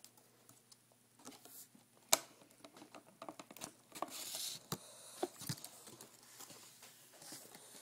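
Scattered small taps and clicks with a brief crinkle, from a clear plastic raspberry container and the berries in it being handled; one sharp click about two seconds in is the loudest.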